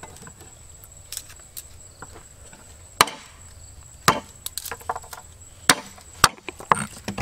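Cleaver smashing and chopping garlic cloves on a wooden chopping board: a series of sharp, irregularly spaced knocks starting about three seconds in, with a few light clicks before them.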